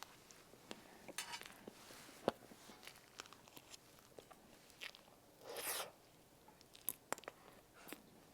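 Close-miked mouth sounds of a person eating: faint chewing with scattered small clicks and smacks, and a short louder rush of noise about five and a half seconds in.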